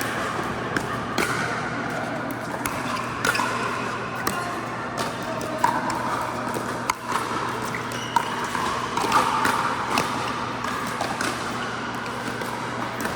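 Pickleball rally: sharp pocks of paddles striking the hollow plastic ball, and its bounces, coming about once a second, ringing in a large indoor hall over a steady low hum.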